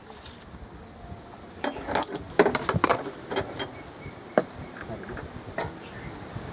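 Small glass and metal clinks and clicks as medicine vials and metal dart-syringe parts are handled and knocked together. A quick run of them comes a couple of seconds in, followed by a few single clicks.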